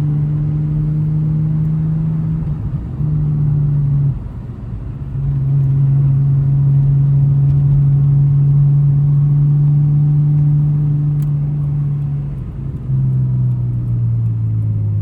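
Nissan Skyline R34 GTT's turbocharged straight-six engine running steadily under way, a low drone that dips and changes pitch briefly about four seconds in and again near the end.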